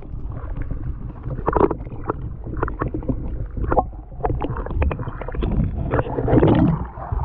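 Water sloshing and gurgling around a camera held just under the lake surface, heard muffled and low, with many short clicks and knocks and a louder surge of water near the end.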